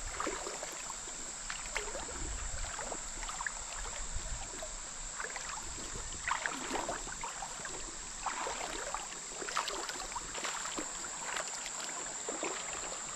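Footsteps wading through shallow creek water, irregular sloshing and splashing about once or twice a second. A steady high insect drone runs behind.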